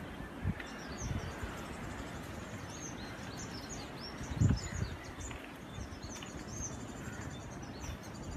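Small birds chirping, many short high calls one after another, over a low, steady background rumble. A single low thump comes about four and a half seconds in.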